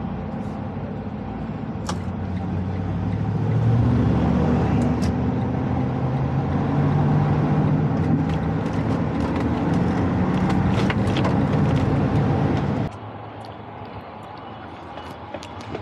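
Semi-truck diesel engine running, getting louder about four seconds in and holding there. The sound cuts off abruptly near the end, leaving a quieter background with a few clicks.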